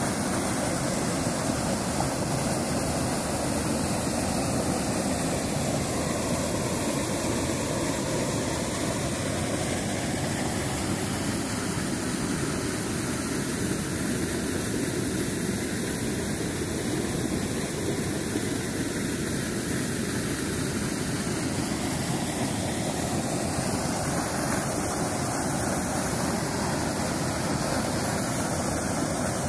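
Muddy floodwater pouring over a mill dam's spillway and rushing downstream, a steady, unbroken rush of water. The creek is in flood after heavy rain.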